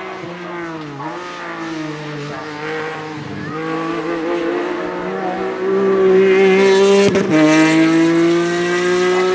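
BMW E46 M3 race car accelerating hard up a hillclimb course past the listener. The engine note climbs through the revs and drops with quick upshifts about a second in and about seven seconds in. It grows louder toward the end as the car goes by.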